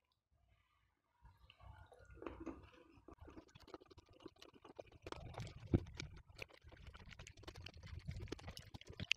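Close-up chewing of batagor (fried fish dumplings and tofu in sauce): a dense run of small clicks and mouth noises that begins about a second in, with a louder click a little past halfway.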